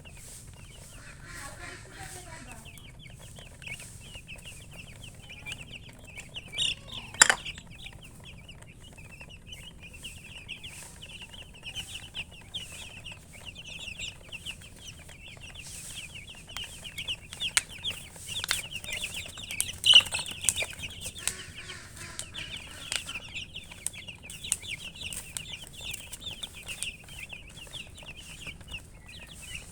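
A flock of chickens: a continuous stream of rapid, high-pitched chirps, with lower clucking now and then. A few sharp knocks stand out, near seven seconds and again around twenty seconds.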